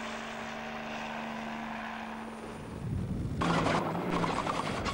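Helicopter hovering: a steady engine-and-rotor hum with one held tone. About three seconds in, it gives way to the louder, rattling engine of a tracked over-snow vehicle.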